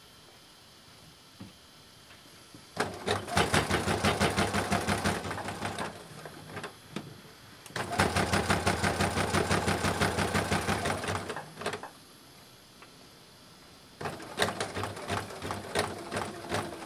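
Domestic electric sewing machine straight-stitching a folded fabric edge, running in three bursts of fast, even stitching with short pauses between them.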